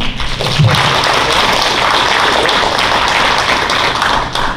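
Audience applauding, a dense patter of many hands clapping in a large hall, fading out near the end.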